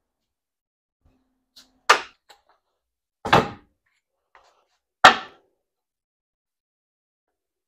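Three sharp knocks on wood, about a second and a half apart, each dying away quickly, with a couple of small ticks between them.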